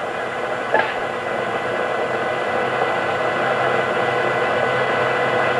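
Steady hiss of recording noise from a Fisher-Price black-and-white toy camcorder, with a single short click a little under a second in.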